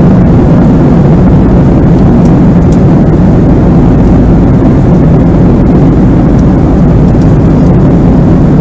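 Steady, loud cabin noise of a Boeing 767-300 in flight: the low, even rush of the engines and airflow heard from a passenger seat.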